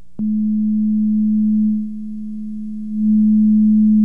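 Low, steady pure tone from an electronic tone generator playing through a small speaker. It switches on with a click just after the start. Its loudness drops for about a second in the middle and then returns, muffled by a phone book held between the speaker and the listener.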